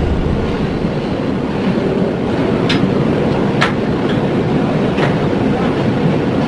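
Steel watertight door's dogging handles being levered open, a few sharp metallic clacks about a second apart over a steady low background rumble.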